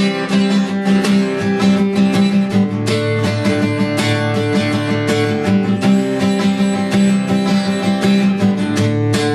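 Instrumental break of a country song: acoustic guitar strumming over a full band with a steady beat, no vocals.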